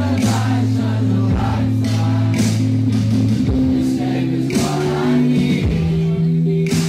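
Live concert music recorded from the audience: a male singer over long held low synth chords and electric guitar.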